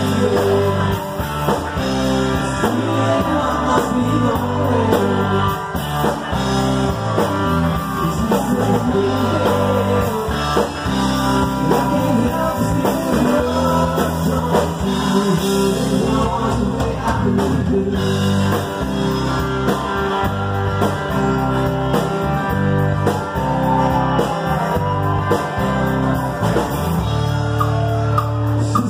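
A live rock band playing loudly: a lead vocal over acoustic guitar, electric guitar, electric bass and drum kit.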